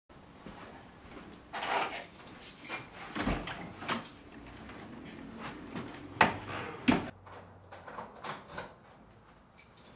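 An interior door being handled: a string of clicks, knocks and rattles from its knob and lock, with two sharper knocks about six and seven seconds in.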